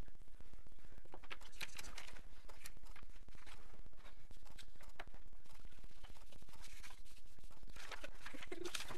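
Pencil scratching across paper in short strokes as words and lines are drawn, with paper rustling as it is moved. A steady low hum sits underneath.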